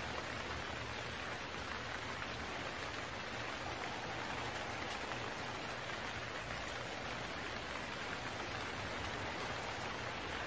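A steady, even rain-like hiss with no tones or rhythm, holding at one level throughout.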